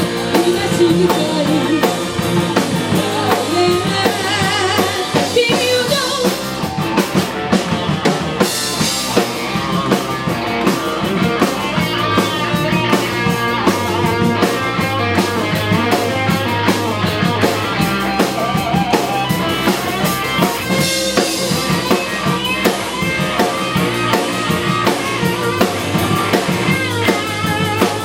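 Rock band playing a song: drum kit keeping a steady beat under guitar, with a singing voice.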